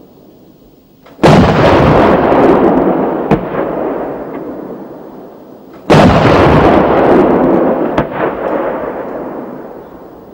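Two single shots from the CV-90's 40 mm Bofors cannon, about five seconds apart. Each is a sudden, very loud blast followed by a long rolling echo that fades over several seconds, with a fainter sharp crack about two seconds after each shot.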